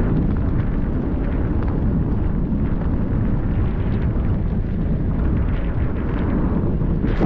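Steady wind rush on the microphone with road noise from a moving vehicle, with a brief louder whoosh right at the end.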